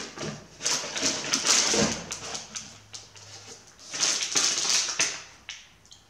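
Plastic snack wrappers crinkling as they are handled in a cardboard box and one package is pulled out, in two rustling bursts of about a second each.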